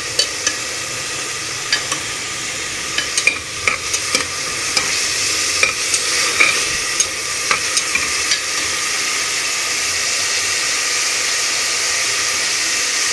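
Sliced onions and a watery ginger-garlic paste sizzling in hot oil in a pressure cooker pot, frying off the paste's raw smell. A slotted spatula stirring them scrapes and taps against the pot again and again during the first eight seconds or so; after that there is only the steady sizzle.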